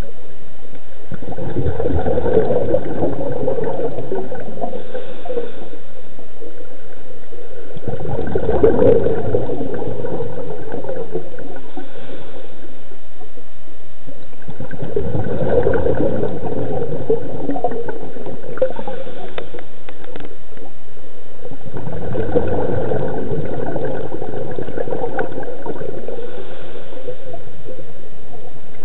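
Scuba diver's regulator breathing heard underwater: a gurgling rush of exhaled bubbles about every seven seconds, four times, with a steady hiss between.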